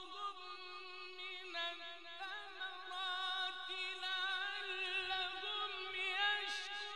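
A male Quran reciter singing one long unbroken melodic line softly, in the drawn-out Egyptian mujawwad style; the held note wavers with ornaments and steps up in pitch about a second and a half in.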